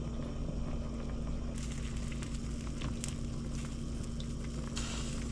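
Steady kitchen background noise: an even hiss over a constant low hum, with a few faint ticks.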